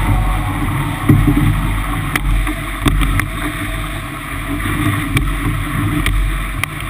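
49er skiff sailing fast in strong wind, heard from a camera mounted on the boat: a steady wash of water and spray with a heavy low rumble of wind on the microphone, and a few scattered sharp ticks.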